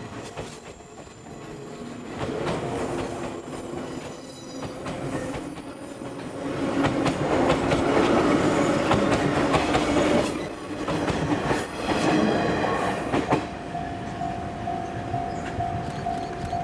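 A 485 series electric multiple unit passes over a level crossing. Its wheels clatter over the rail joints, building to the loudest stretch in the middle as the cars go by, then fading. In the last few seconds a level-crossing warning bell rings with a steady, pulsing tone.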